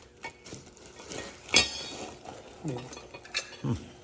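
Small metal engine parts clinking and rattling as they are handled, with one sharper clink about one and a half seconds in.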